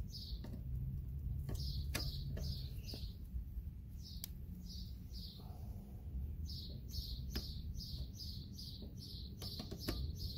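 A small bird chirping over and over in short high chirps, a few a second, in several runs. Now and then there is a light metallic click from the pliers working on the footpeg mount.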